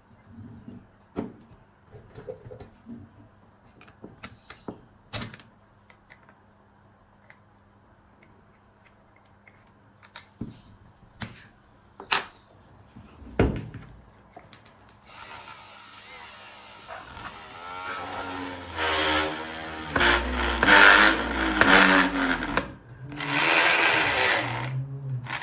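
Scattered clicks and handling noises as a step drill bit is fitted into a drill chuck, then a homemade drill's 775 DC motor starts running and the step bit cuts into a thin plastic sheet with a steady high whine. The cutting noise is loudest a few seconds after it starts, breaks off briefly near the end, then runs again.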